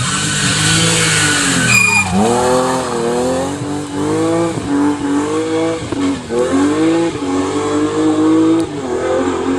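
Rally car engine at full throttle, revving up and changing gear, its pitch dropping sharply about two seconds in and then climbing and falling several more times.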